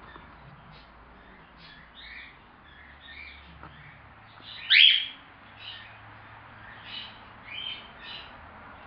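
Young cockatiel chirping: short, soft chirps scattered throughout, with one loud rising call about halfway through.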